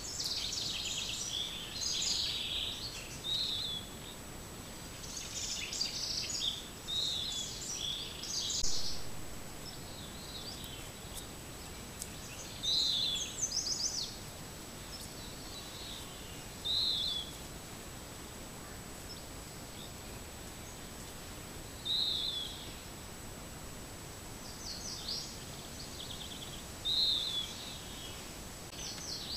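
Songbirds singing in short, repeated high phrases over a steady hiss. The song is dense for the first several seconds, then thins to single short phrases every four to five seconds.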